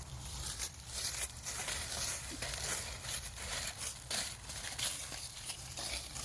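Irregular rustling and crackling: many short, sharp crackles in quick, uneven succession over a low steady rumble.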